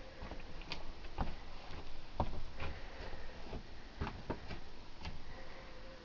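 Handling noise and footsteps inside a caravan: scattered light knocks and clicks at irregular intervals.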